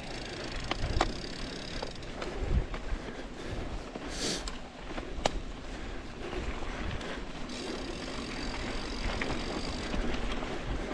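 Mountain bike (Yeti SB150) being ridden on a dirt trail: steady tyre and wind noise with scattered sharp clicks, rattles and low knocks from the bike, and a brief hiss about four seconds in.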